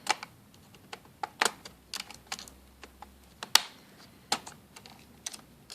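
Screwdriver prying along the top edge of an HP Pavilion G series laptop keyboard to release its plastic retaining clips: a string of irregular sharp plastic clicks and taps, the loudest about three and a half seconds in.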